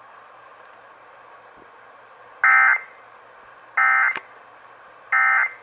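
Emergency Alert System end-of-message signal: three short, identical bursts of SAME digital data tones, about 1.4 s apart, closing the required monthly test.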